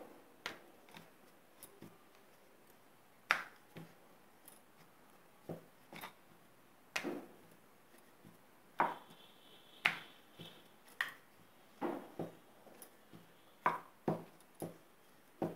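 Wooden rolling pin knocking and clacking on a wooden rolling board while paratha dough is rolled out: irregular short knocks, roughly one a second.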